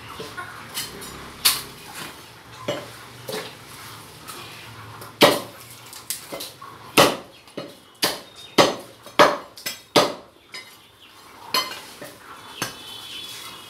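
A butcher's cleaver chopping a goat head on a wooden chopping block. It gives irregular sharp chops: a few scattered strikes, then a run of heavy blows about every half second in the middle, then a couple more, with lighter metal clinks between.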